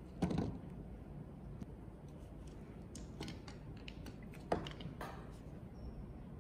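Light clicks and knocks of small hard objects being handled, with two louder knocks about four seconds apart.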